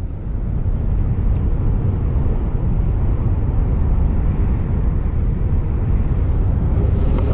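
Wind buffeting the camera's microphone: a steady, loud low rumble with no pitch to it.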